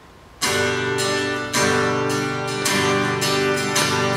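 Acoustic guitar strumming chords, starting suddenly about half a second in, with a strong strum about once a second and the chords ringing between.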